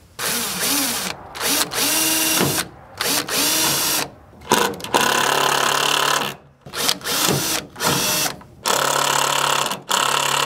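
Makita cordless drill driving screws into a wooden plaque, run in about eight short bursts. Its motor pitch rises as it spins up and falls as the trigger is released.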